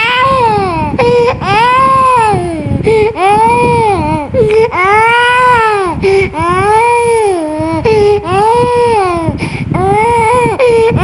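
Young child crying hard in distress and discomfort from being sick with a cold: a string of loud wails, each rising and falling over a second or so, with quick catches of breath between.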